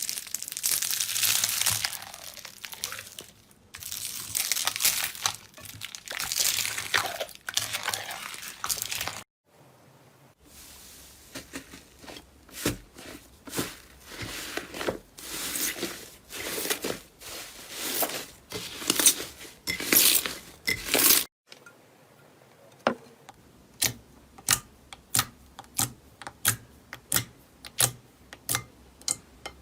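Slime squeezed and pressed by hand, making crinkly, crackling sounds in swells. After a short break it gives rhythmic crackles, and after a second break a run of sharp, even clicks and pops, about one and a half a second.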